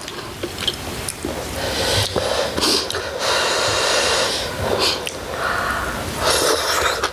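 Close-up eating sounds from a hotpot meal: several noisy slurps with some chewing between them, the longest slurp about halfway through and a shorter one near the end.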